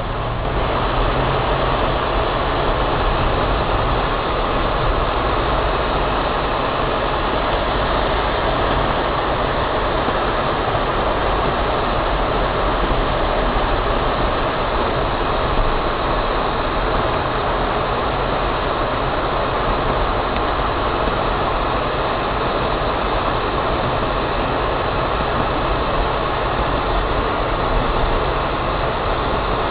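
Steady road and engine noise inside a moving car's cabin, with tyres running on wet, slushy roads.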